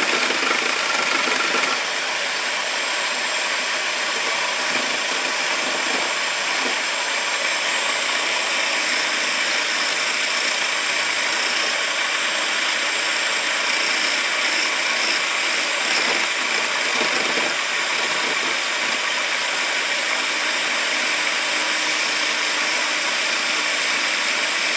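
Electric drill running steadily as the motor of a homemade lathe, with a constant high whine.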